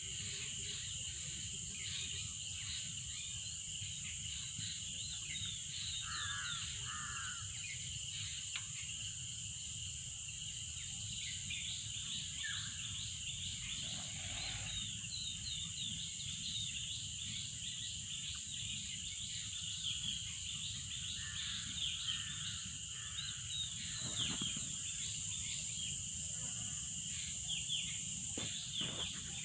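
Birds chirping and calling outdoors: many short high chirps throughout, with a few lower calls, over a steady high-pitched drone and a low background rumble.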